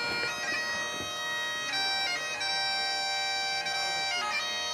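Bagpipes playing a slow tune over a steady drone, each note held a second or more.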